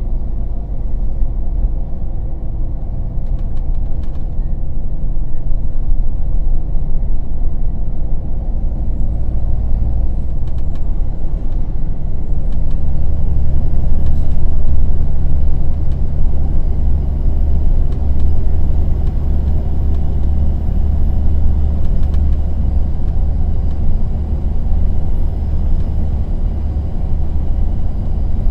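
Temsa Safir Plus coach's engine heard from inside the passenger cabin while driving: a steady low drone that grows heavier about twelve seconds in, with a faint high whine above it.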